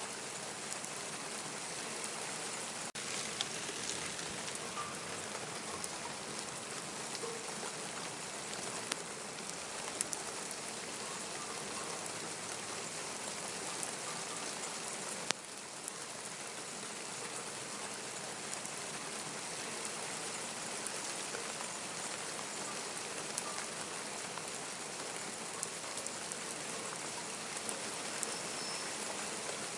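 Steady rain falling, a continuous even hiss, with occasional sharp ticks of drops landing close by.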